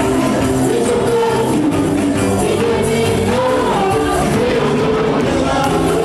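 Worship music with singing, holding at a steady level throughout.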